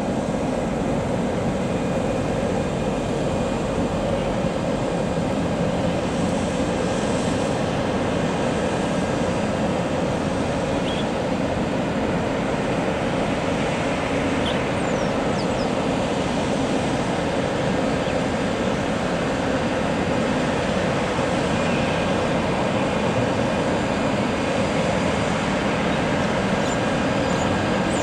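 Airbus A350's Rolls-Royce Trent XWB jet engines running steadily at low taxi thrust, growing slightly louder near the end as the airliner approaches.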